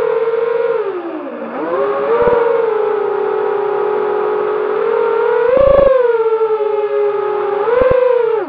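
Quadcopter's four brushless motors (RMRC 2204 2300kv) spinning DAL 5040 tri-blade props, making a steady whine as heard from the onboard camera. The pitch dips about a second in as the throttle comes off, climbs back, swells briefly near six seconds and starts to fall near the end.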